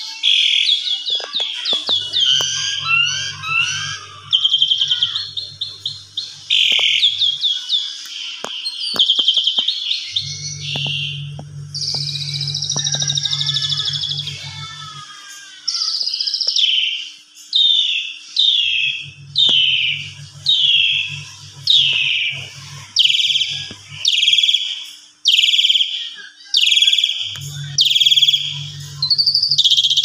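Javan pied starling (jalak suren) singing loudly in full agitated song. It starts with quick, varied chattering phrases and holds a long whistled note near the middle. From about halfway it switches to a run of more than a dozen loud, down-slurred calls, about one a second.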